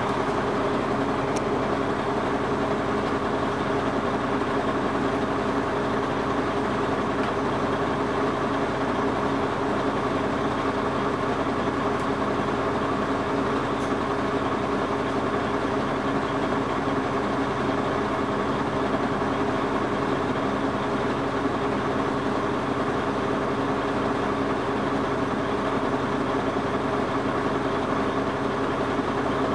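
Dennis Arrow double-decker bus's diesel engine idling steadily, with no rise or fall in revs.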